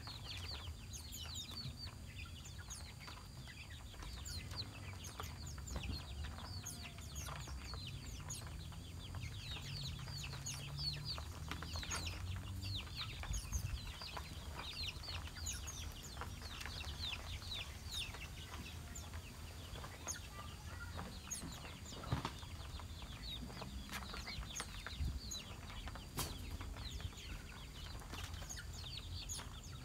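Small birds chirping busily, with short, high, quickly falling chirps several times a second, over a low rumble.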